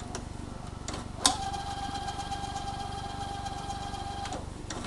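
Sanyo VHR 2250 VCR: a sharp click, then a steady high whine for about three seconds that cuts off suddenly, over a low steady hum.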